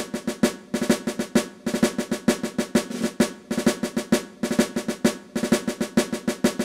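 Intro music played on drums: a snare-led drum cadence of rapid strikes in short phrases with brief pauses between them.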